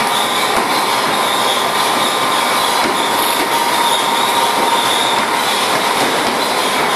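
Horse treadmill running under a walking horse: a loud, steady mechanical noise from the motor and moving belt, with a faint high whine over it.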